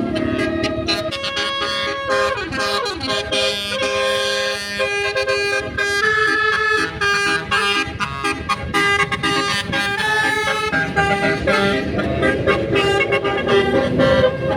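Bus telolet horn, a multi-tone musical air horn, playing a quick tune of short changing notes throughout.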